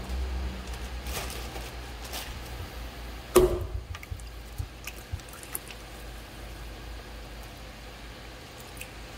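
Wet clay squishing on a running pottery wheel over the low hum of the wheel's motor, with one heavy thump about three seconds in and a few light taps after it.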